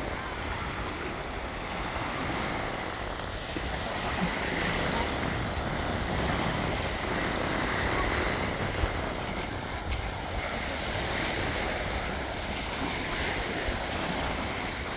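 Steady rushing noise of wind on the microphone and sea waves. A faint, steady high-pitched buzz runs through it from a few seconds in.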